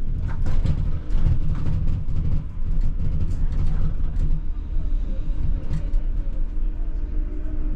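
ČKD Tatra T6A5 tram running along the track, heard from on board: a steady low rumble of wheels and running gear with a constant hum, and scattered clicks and knocks over the first few seconds.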